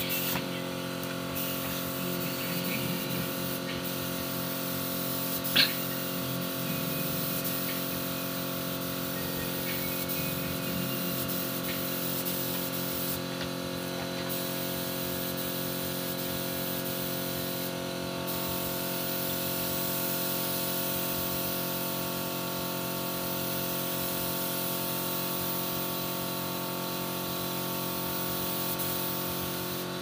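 Gravity-feed air spray gun hissing steadily as it sprays finish onto a wooden door, over a steady hum of tones. One sharp click about five and a half seconds in.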